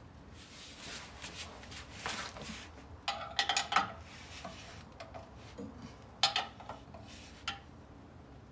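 Wrench clinking on the bolts of a Dana 60 differential cover as they are worked loose: scattered sharp metal clinks, bunched about three to four seconds in and again past six seconds.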